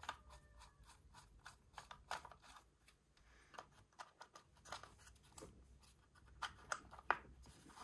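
Faint, scattered clicks, taps and scrapes of plastic timing-belt cover pieces being handled and pushed into place against the engine.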